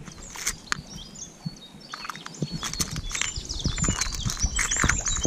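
A songbird singing quick repeated sweeping notes that start about three seconds in, over small clicks and rattles of metal spinner lures being picked through in a plastic lure box.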